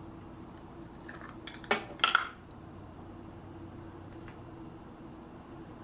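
A handful of short clinks and knocks of kitchen utensils against a dish, such as a measuring spoon and spice containers. The two loudest come about two seconds in, with a faint tick later, over a faint steady hum.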